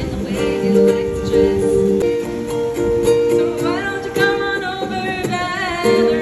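Two ukuleles strummed together live and amplified, playing steady chords. A voice sings a melody over them through a microphone for a couple of seconds in the second half.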